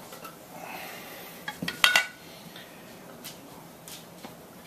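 A metal fork clinking and tapping against a cutting board as its tines crimp the edges of a folded wonton wrapper. There are a few short taps, the loudest a sharp clink about two seconds in.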